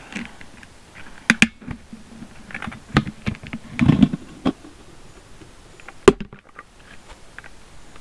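Tight-fitting plastic lid being prised off a fermentation bucket: a series of irregular clicks and snaps as the rim is worked free, the loudest snap about six seconds in.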